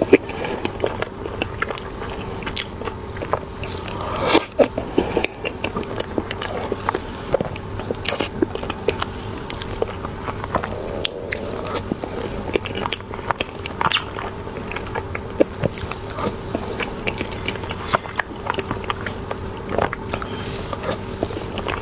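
Close-miked mouth sounds of a person biting into and chewing a soft cream-filled bun: a steady run of small wet clicks and smacks, with a louder cluster of bites about four seconds in.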